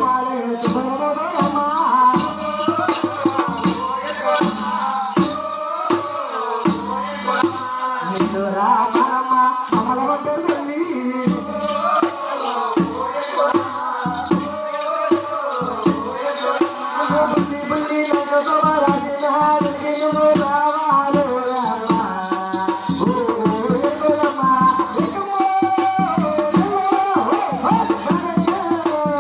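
Telugu folk singing over rhythmic percussion with a constant rattling, clicking beat, the music of a kolatam stick dance.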